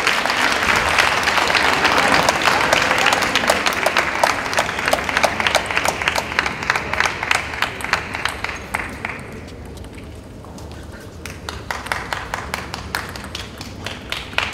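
Audience applause in an arena, a dense wash of claps that dies away about nine seconds in, leaving scattered claps.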